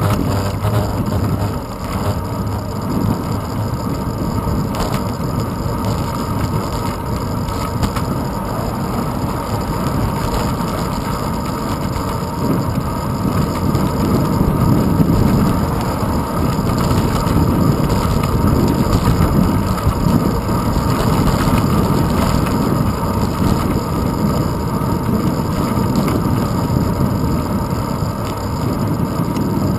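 Wind and road-vibration rumble picked up by a handlebar-mounted GoPro Hero 2 as a bicycle rolls along asphalt: a steady, dense low rumble with a few light knocks from bumps.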